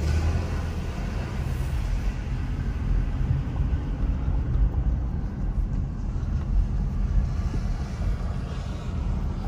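Road noise inside a moving car's cabin: a steady low rumble of engine and tyres on the road.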